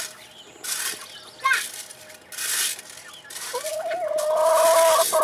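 Metal rake scraped across hard dirt, gravel and wood chips in three strokes, the last one longer. Over the last stroke a long, held high call with a slight rise at its start is the loudest sound.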